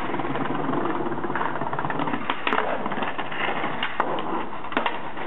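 Skateboard rolling over paving stones: a steady rumble of the wheels, with several sharp clacks of the board, the loudest about four seconds in.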